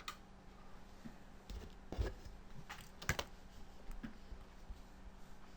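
A handful of separate clicks on a computer keyboard, the loudest about two and three seconds in, over a faint steady hum.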